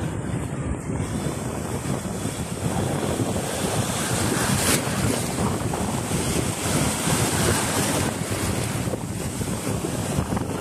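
Small sea waves washing in over a sandy shallow shore, the foaming water hissing, with wind buffeting the microphone in a steady low rumble. The hiss of the water grows fuller about a second in.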